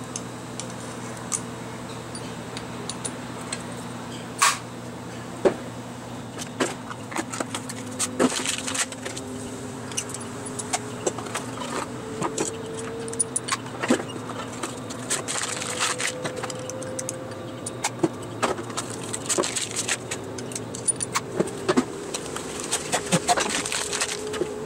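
Small metal engine parts and hand tools clinking and tapping as they are handled on a workbench: irregular metallic clicks and knocks, a few louder than the rest, over a steady low hum.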